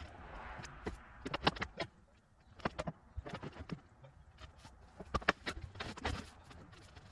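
Scattered knocks, clicks and light rattles, irregular and uneven in strength, with a brief rush of noise in the first second.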